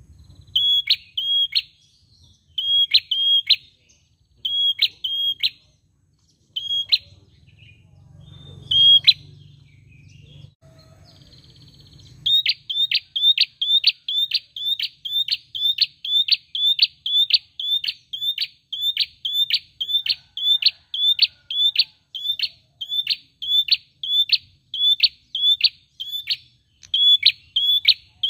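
A caged prenjak (tailorbird) singing loud, sharp chirps. At first they come in short groups of two or three with gaps between. From about twelve seconds in, they run on steadily at about two chirps a second.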